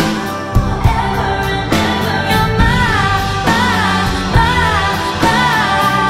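Background pop song: a sung melody over instrumental backing with a steady beat.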